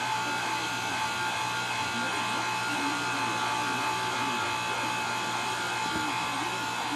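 Electric pasta machine motor running with a steady, even whine.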